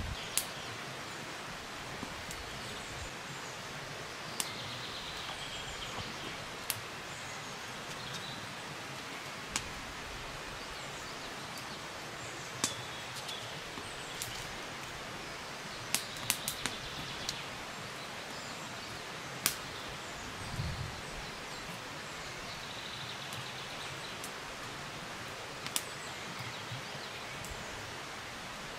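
Forest campsite ambience: a steady hiss, with birds chirping now and then. Over it come scattered sharp clicks, a few in a quick cluster around the middle, and one soft thud a little later.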